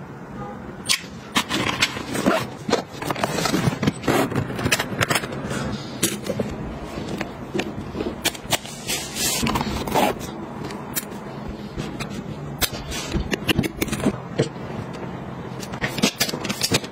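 Close handling sounds of packing: irregular clicks, taps and scrapes as a folding plastic clothes hanger and folding sunglasses are opened, snapped and folded.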